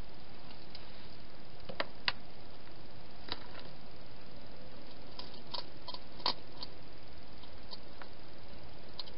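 A wild hedgehog eating at bowls inside a plastic feeding box: about a dozen sharp, irregular clicks and crunches, the loudest about two seconds and six seconds in, over a steady hiss.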